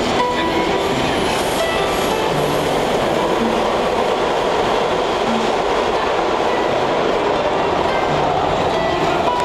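Subway train running, a loud steady rail noise from the moving car, with a harp's plucked notes faintly audible over it.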